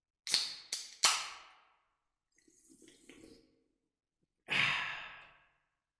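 Three sharp, hissing cracks in quick succession, a few faint small sounds, then a long breathy sigh about four and a half seconds in.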